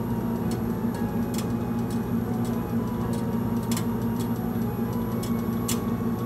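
Milk heating toward curdling in a steel pot on a gas stove: irregular sharp pops and ticks, roughly one every half second to a second, over a steady low hum.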